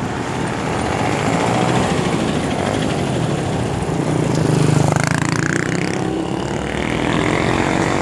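City street traffic: a city bus passing close by with its engine running, over the steady rumble and road noise of other vehicles. The engine sound is loudest about four to five seconds in.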